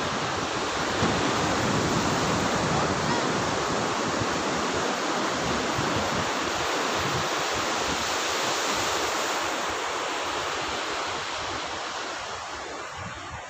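Sea surf breaking and washing up the beach: a steady rushing noise of waves that eases a little near the end.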